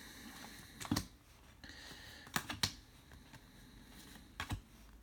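Trading cards being handled and flipped through by hand, with a few sharp light clicks as the cards slide and tap against each other.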